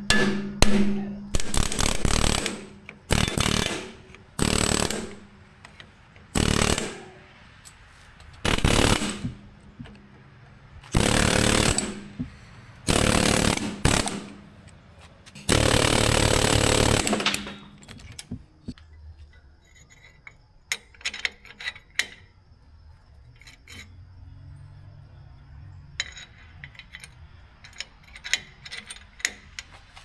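A power tool run in about nine short, loud bursts on the bolts that hold the carbide teeth on a Ditch Witch trencher chain, as broken teeth are taken off and refitted. The bursts stop about eighteen seconds in, and then there are only quieter clicks and taps of hand work.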